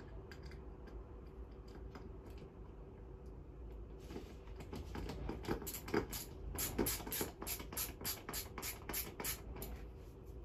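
Hand screwdriver turning a screw into the wooden beam of a rigid heddle loom, with scattered small clicks at first and then, about four seconds in, a quick run of evenly spaced clicks at about three a second.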